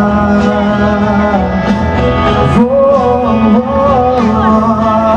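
Live pop band music played through a stadium sound system, with a man singing the melody into a microphone.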